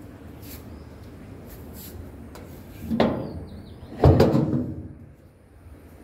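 Two thumps about a second apart, the second louder and deeper, each dying away over about half a second.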